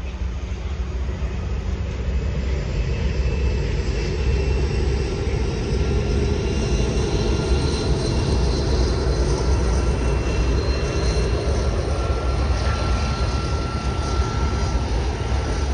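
Class 232 diesel locomotive hauling a freight train of tank wagons across an overpass: a heavy, steady diesel rumble that grows louder over the first couple of seconds and then holds, with faint high steady tones above it.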